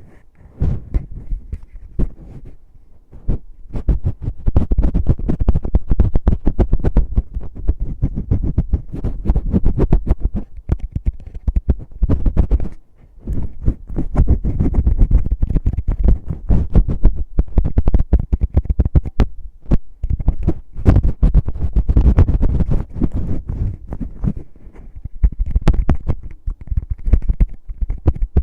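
Fingers scratching, rubbing and tapping right on an ASMR microphone's ear: a dense, rough run of scrapes and quick muffled thumps. It is quieter for the first few seconds and dips briefly about halfway through.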